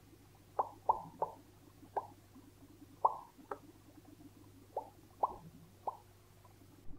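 Mouth pops: hollow plopping sounds made with the lips in imitation of a fish gulping, about nine of them, irregularly spaced.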